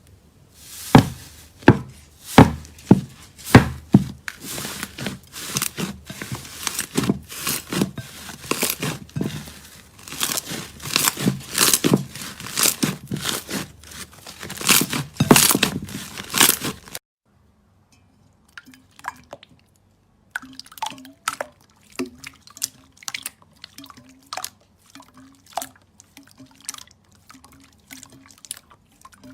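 Slime being squeezed and pressed by hand, making a dense run of sharp wet clicks and crackling pops. About two-thirds of the way through it cuts off, and a quieter stretch follows with sparser clicks over a faint steady hum.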